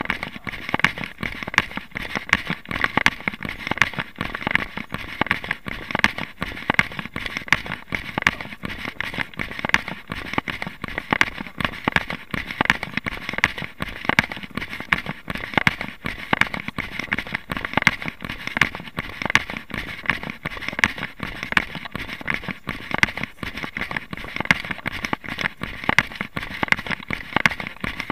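A runner's strides crunching on a gravel track, heard through a body-worn camera as a rapid, continuous crackle of scuffs and knocks.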